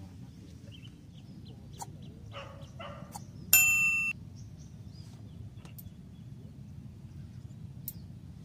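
A small bell on a set fishing rod's tip rings once, bright and sharp for about half a second, a little past three seconds in: the sign of a fish striking the bait.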